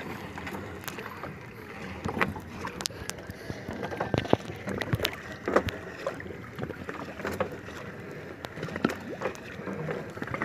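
Fish-trap rope being hauled hand over hand into a wooden outrigger boat: irregular knocks, clicks and scrapes of the line and hands against the hull, over a steady background hiss.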